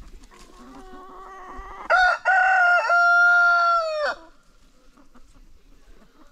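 A rooster crowing once, starting about two seconds in: a couple of short notes, then a long held note that drops off sharply at the end. A fainter, lower call sounds just before it.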